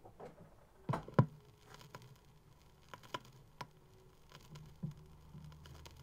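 Gap between the songs on a vinyl single: record surface noise with scattered clicks and pops, two louder pops about a second in, and a faint low hum.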